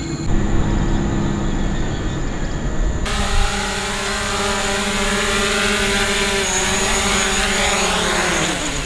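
Small quadcopter drone flying in close and landing: a loud, steady whine of several tones over a hiss, starting suddenly about three seconds in, with its pitch falling as the rotors spin down near the end.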